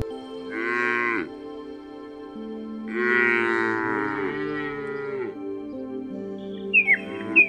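A young cow mooing twice, a short moo about half a second in and a longer one about three seconds in, over soft background music. Near the end, short high falling chirps begin.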